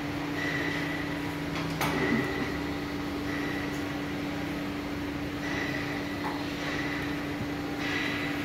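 Steady mechanical hum with a constant low tone, and a single sharp click just under two seconds in.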